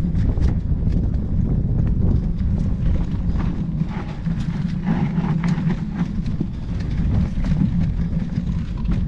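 Mountain bike ridden fast down a dirt trail: a continuous low rumble with many scattered clacks and rattles as the bike runs over rough ground.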